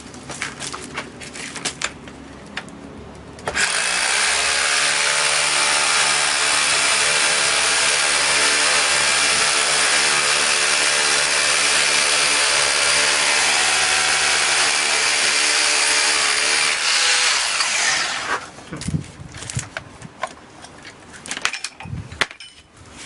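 Two rotary hammers, a Metabo UHE 2850 Multi and a Makita HR2810, hammer-drilling into a concrete block together: a loud, steady drilling noise that starts about three and a half seconds in and stops about eighteen seconds in. Knocks and handling sounds come before and after it.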